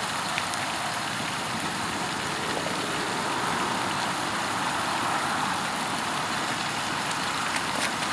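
Steady rushing noise, even and unchanging, with a few faint clicks.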